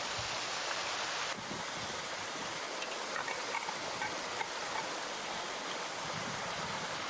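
Steady rushing of a small mountain stream. The water sound changes abruptly a little over a second in, and a few faint ticks follow.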